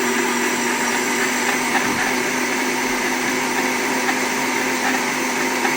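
Electric blender running steadily, blitzing a liquid mix of coffee, butter, ghee and MCT oil, with a constant motor hum under a whirring rush.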